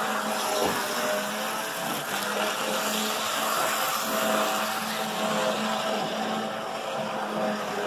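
Märklin model electric locomotive running along the layout track: a steady whine from its small electric motor over the running noise of its wheels on the rails.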